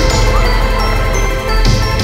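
Background music with a heavy, steady bass beat and sustained notes.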